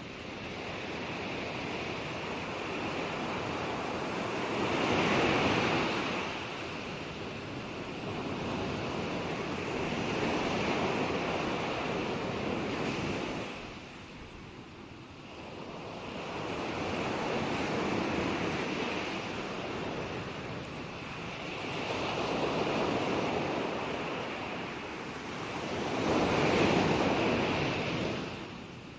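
Gentle ocean waves breaking and washing ashore: a steady hiss of surf that swells with each wave and eases off between them, about every four to eight seconds.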